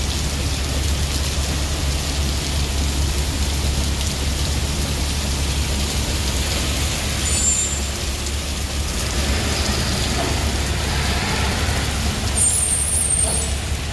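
A car driving through heavy rain in city traffic: a steady low rumble from the engine and road under an even hiss of rain. Short high squeals come about halfway through and again near the end.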